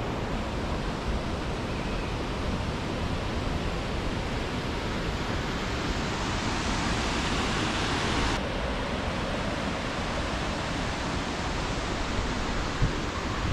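Bell Gorge waterfall: a steady, full rush of falling water, with the hiss changing suddenly about eight seconds in.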